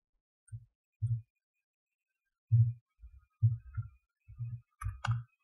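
Computer keyboard being typed on at an irregular pace, the keystrokes picked up mostly as dull low thumps, about ten of them, with a few sharper clicks near the end.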